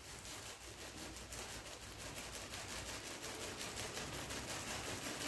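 Faint crinkling of a plastic bag handled in gloved hands as red pepper flakes are shaken out of it.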